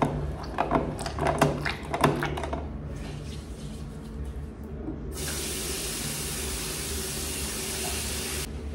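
Handwashing at a restroom basin: a few sharp squirts and clicks of the wall soap dispenser and hands over the first couple of seconds, the loudest part. From about five seconds in, the tap runs with a steady hiss of water over the hands, then cuts off suddenly shortly before the end.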